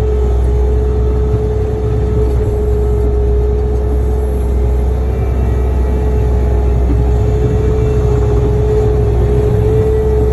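A compact loader's engine running steadily, heard from inside the cab: a constant low drone with a steady whine above it.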